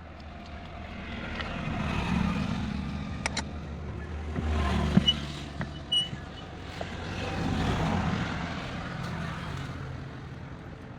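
Motor vehicles passing one after another, each swelling up and fading away three times over, with a few short sharp knocks in between.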